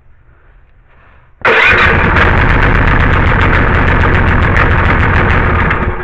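New electric-start small gasoline engine on a pressure washer starting up about a second and a half in, running loud and steady for about four seconds, then stopping near the end. It is the engine's first run after being fitted, and it runs.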